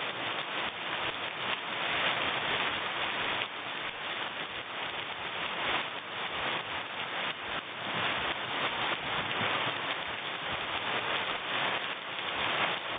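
Rain falling steadily on a garden, a dense, even patter of countless drops.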